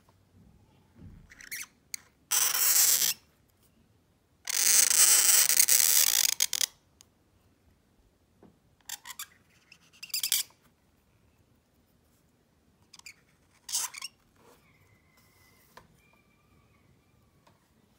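Calligraphy pen nib scratching across paper as it draws ink strokes: two long scratches, the second about two seconds long, then a few shorter ones.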